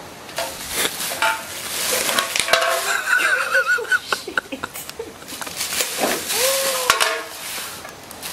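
Thin plastic rubbish bags crinkling and rustling in bursts as a macaque grabs, tears and drags them.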